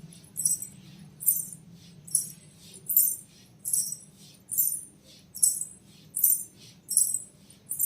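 Payal anklet bells jingling in an even rhythm as the feet move, one high, bright jingle about every 0.8 seconds.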